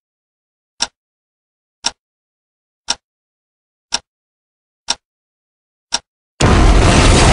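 A series of short, sharp hit sound effects about one a second, with dead silence between them. About six seconds in, loud music with heavy bass cuts in abruptly.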